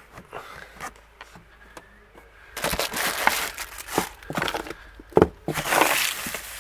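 Plastic packaging rustling and crinkling as wrapped items are handled in a car boot's side compartment. It comes in two spells, starting about two and a half seconds in, with a few sharp knocks between them.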